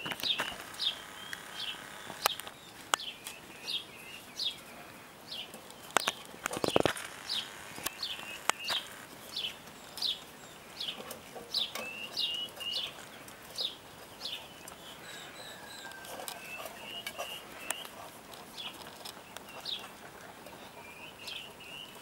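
A small bird chirping over and over, a short high falling chirp about twice a second. Puppies eat from a metal bowl beneath it, with scattered clicks and clinks and one louder thump about seven seconds in.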